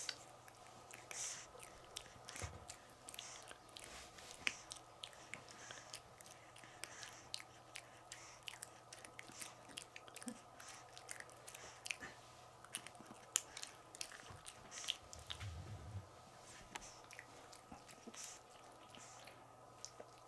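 Pug puppy chewing and gnawing on a small plush toy: faint, irregular clicks and snaps of its teeth and mouth, with a steady low hum underneath.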